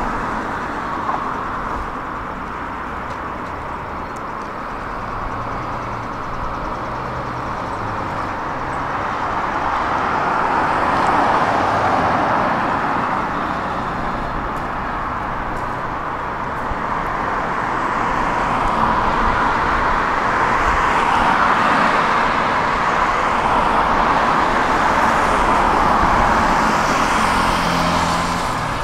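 Road traffic on a city street: the tyre and engine noise of cars passing, swelling and fading as vehicles go by. A motorcycle engine is heard passing near the end.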